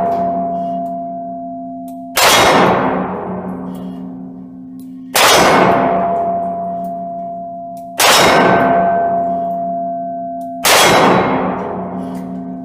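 Four shots from a Smith & Wesson M&P 340 snub-nose revolver, about three seconds apart. Each one rings a steel target with a long, slowly fading metallic tone. The ring from a hit just before carries into the start.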